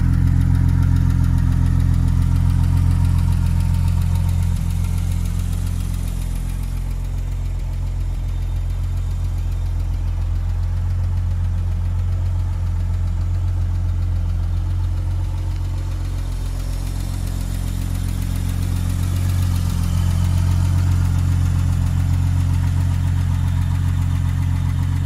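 1976 Triumph TR6's 2.5-litre inline six-cylinder engine idling steadily, a little quieter for several seconds in the middle.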